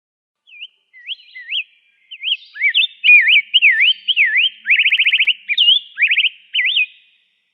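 Rose-breasted grosbeak singing one long warbled song of quick rising and falling whistled notes, with a rapid trill a little past the middle.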